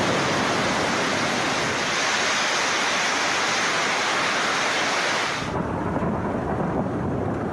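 Heavy thunderstorm rain hissing steadily. About five and a half seconds in, the sound switches abruptly to a duller, deeper noise with more low rumble.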